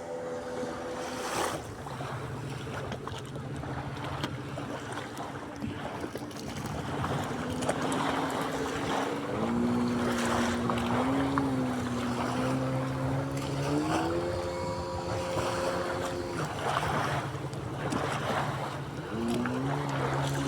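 Sea waves washing, with a motor humming underneath whose pitch holds steady and then steps up and down several times.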